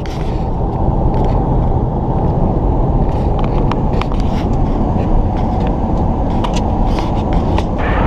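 Road and wind noise inside a moving car's cabin: a loud, steady rumble with scattered light clicks and rattles.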